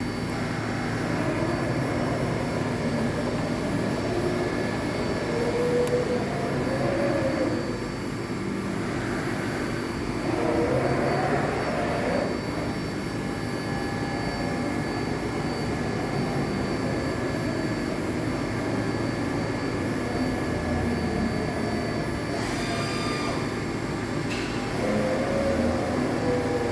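EDEL CP 4020 five-axis portal milling machine running: a steady machine hum with several steady tones, and a drive whine that rises and falls several times as the axes move.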